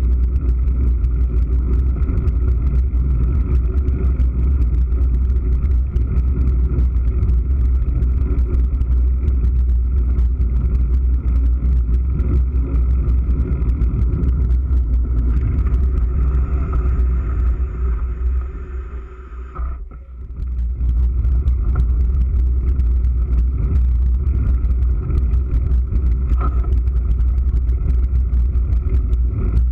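Heavy wind rumble on a GoPro Hero3's microphone, with tyre noise and small rattling knocks, as a mountain bike rides fast over a dirt track. The noise eases off for a couple of seconds about two-thirds of the way through, then comes back.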